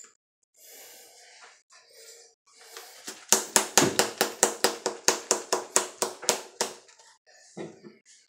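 A can of Copenhagen Wintergreen dip tobacco, with a metal lid and plastic bottom, being packed by flicking it against the hand. It makes a quick run of sharp, even taps, about five a second, that begins about three seconds in and lasts some three and a half seconds, after a little faint handling noise.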